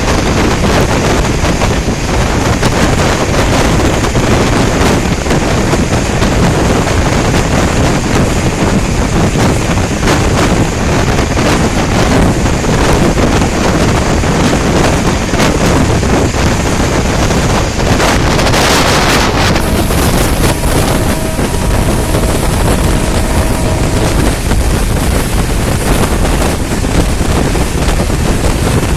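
Indian Railways express train running at speed, its rushing wind and running noise heavy on the microphone. After a brief surge of hiss about eighteen seconds in, a locomotive horn sounds one steady two-tone blast for about four seconds.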